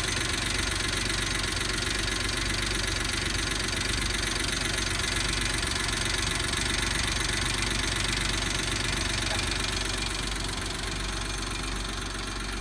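Suzuki Jimny JA11's small three-cylinder turbo engine idling steadily with a fast, light metallic jingling rattle from the engine bay, a bell-like chatter. It is an abnormal noise that the owner sets out to fix by replacing the exhaust manifold.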